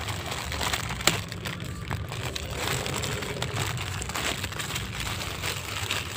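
Clear plastic packaging of bagged toys crinkling and rustling as the bags are handled, with a sharp click about a second in.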